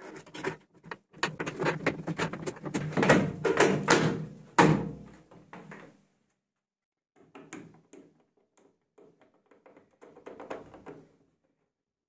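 Plastic control panel of a Vestel washing machine being pushed and knocked into place on the cabinet: a quick run of plastic clicks and knocks, loudest about three and four and a half seconds in, followed by lighter scattered clicking.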